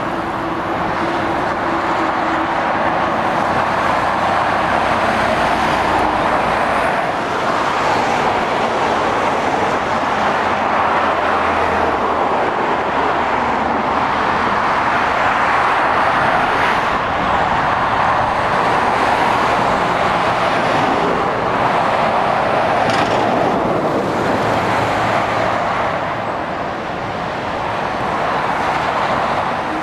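Steady motorway traffic: lorries and cars passing, a continuous tyre-and-road roar over a low engine drone, easing briefly near the end.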